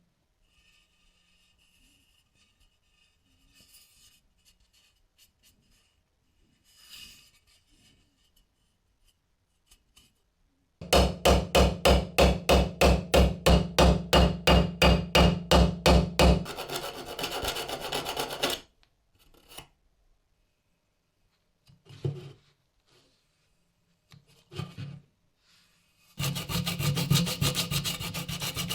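Hand abrading of a workpiece: loud, evenly paced scraping strokes at about four a second for several seconds, then quicker strokes. After a pause with a couple of short scrapes, a fast run of strokes starts near the end.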